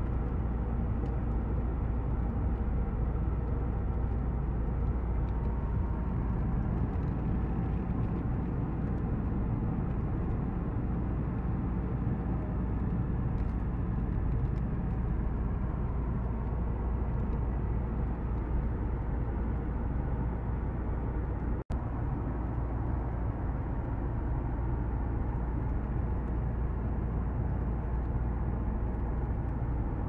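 Steady road noise inside a moving car's cabin, the low rumble of tyres and engine at motorway speed. The sound drops out for an instant about two-thirds of the way through.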